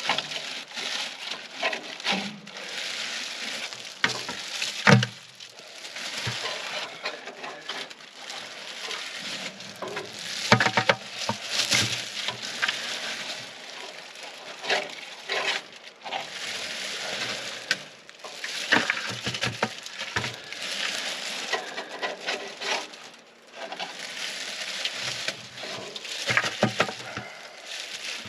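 Irregular scraping, scrubbing and knocking of hand cleaning work: old oil sludge and rust being scraped and wiped out of a rectifier's metal oil tank.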